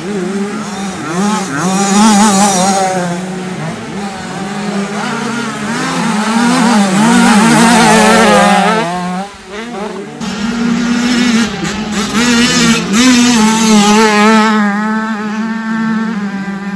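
65cc two-stroke motocross bikes racing on the track, engines revving up and down so that the pitch keeps wavering, loud, with one bike passing close.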